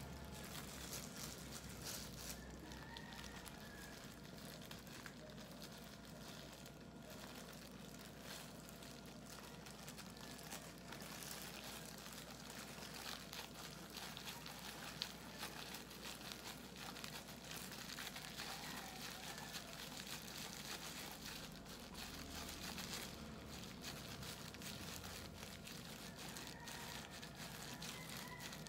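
Faint, continuous crinkling and rustling of disposable plastic gloves and a bamboo rolling mat as hands press and roll kimbap.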